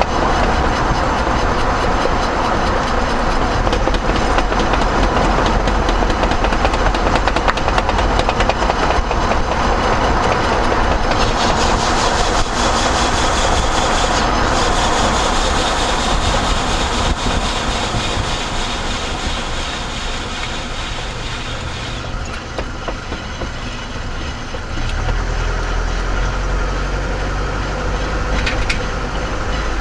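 A vehicle driving, with a rapid, rhythmic knocking from a tire over steady road noise.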